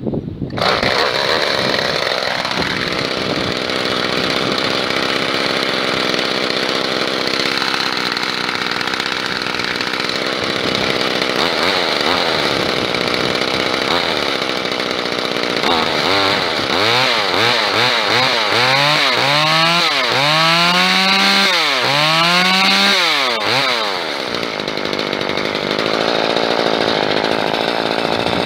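A small engine running loudly and steadily, coming in abruptly at the start. In the second half it is revved up and down in a quick run of surges for several seconds, then settles back to a steady speed.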